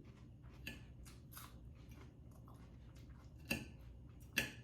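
Close-up eating sounds: a run of small crisp bites and chewing clicks, with two sharper, louder crunches about three and a half and four and a half seconds in.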